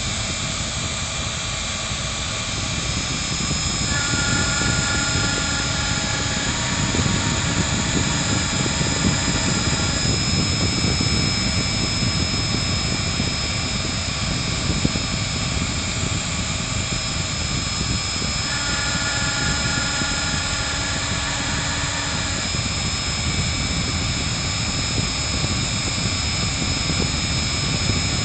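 Hobby CNC router engraving wood: the spindle runs with a steady high whine over the noise of the cut. About four seconds in and again about eighteen seconds in, the stepper motors add a stacked, multi-tone whine for several seconds while the axes move.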